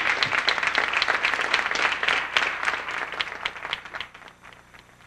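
Audience applauding: dense clapping that thins out and dies away about four seconds in.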